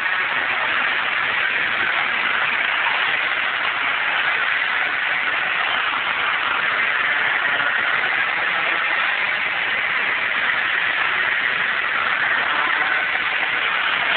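Nitro scooter's two-stroke engine running steadily as it laps an indoor kart track, heard as an even, hissy drone with no clear pitch changes.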